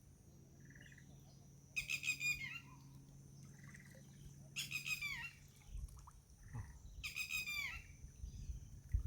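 A bird calling repeatedly outdoors: the same short call, falling in pitch, comes three times about two and a half seconds apart, with a fainter short note between calls.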